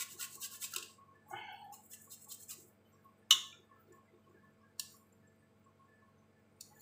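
Garlic being grated on a small metal hand grater: quick rasping strokes, about five a second, that stop about a second in, then softer scraping. A few seconds in comes a single sharp knock, the loudest sound, followed later by two light ticks.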